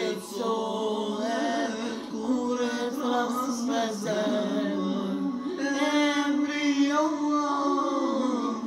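A male voice singing an ilahi, an Islamic devotional song, in long held notes with melodic ornaments.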